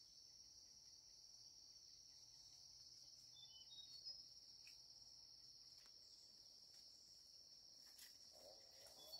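Faint, steady high-pitched chirring of insects, with a few short high chirps about three to four seconds in.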